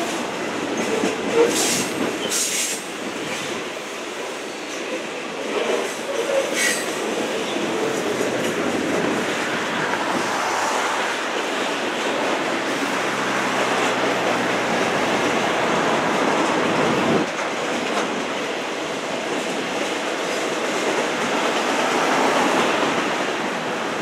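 Freight train cars, boxcars and centerbeam lumber flatcars, rolling steadily past, giving continuous wheel-on-rail noise. In the first seven seconds there are a few brief high squeals from the wheels.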